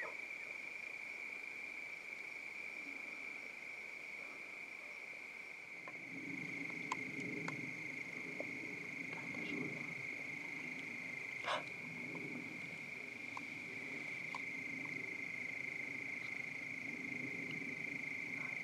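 Steady insect chorus, crickets trilling at one high pitch. A low hum joins about six seconds in, and there are a few faint clicks, the clearest near the middle.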